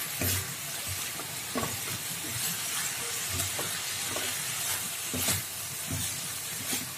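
Spatula stirring fried tempeh strips and chilies in a wok, with irregular scrapes and knocks against the pan over a steady sizzle of frying in the sauce.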